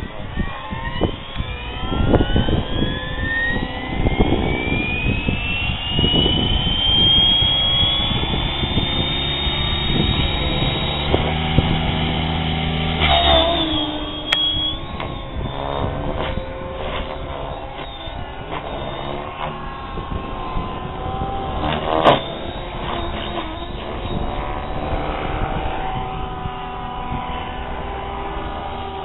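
Compass 6HV electric RC helicopter spooling up, its motor and rotor whine rising steadily in pitch over about ten seconds, then flying, the whine and blade noise shifting up and down in pitch and level as it manoeuvres. A brief loud swell comes about three quarters of the way through.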